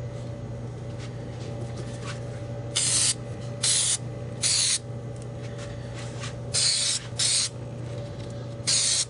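Aerosol can of spray glue hissing in six short bursts of about half a second each, starting about three seconds in, as felt is coated with adhesive. A steady low hum sits underneath.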